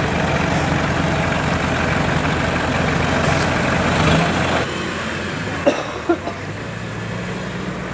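An off-road 4x4's engine running steadily. Its note eases down a little about four and a half seconds in, and two short sharp knocks come about a second later.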